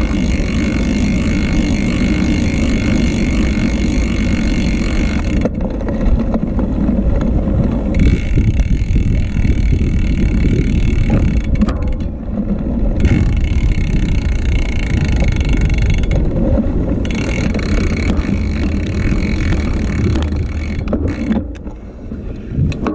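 Steady wind buffeting on an action camera's microphone, mixed with the rumble of bicycle tyres rolling over rough concrete. It eases off near the end.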